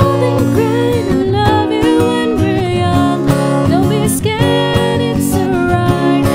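Acoustic guitar strummed and picked under a singing voice in a slow pop ballad duet.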